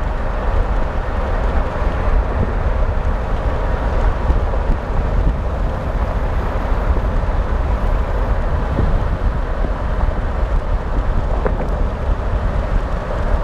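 Car driving at highway speed: steady road and wind noise with a deep rumble.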